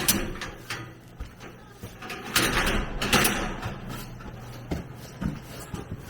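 Irregular rustling and clattering with a few sharp knocks, the loudest stretch about two to three and a half seconds in, over a steady low hum.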